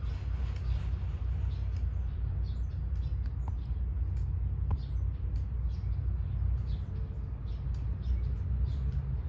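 Small birds chirping, many short high notes in quick succession, over a steady low rumble.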